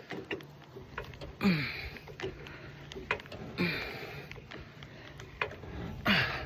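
Floor jack being pumped to raise a van, one stroke about every two seconds, each with a short sound that falls in pitch.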